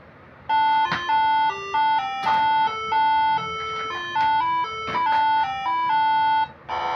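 Air horn driven by a Moreno MS7 melody module playing tune number 7: a short melody of held notes, two pitches sounding together, each note changing abruptly. A few sharp clicks fall between the notes.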